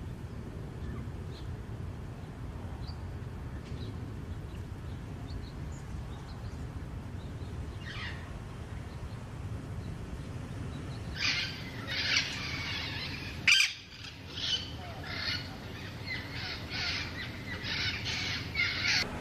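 Feral parrots squawking: after a stretch of faint chirps over a low background rumble, a run of loud, harsh calls starts about two-thirds of the way through and repeats roughly twice a second, broken once by a sharp click.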